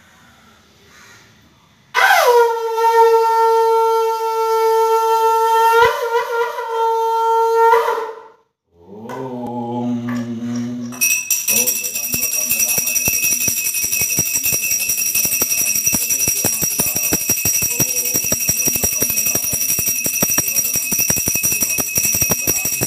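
Conch shell (shankh) blown in one long, steady note of about six seconds, with a quick upward swoop at the start and a waver near the end. After a short low sound, a small brass puja hand bell is rung rapidly and without a break for the rest of the time: a steady high ring over fast clapper strikes.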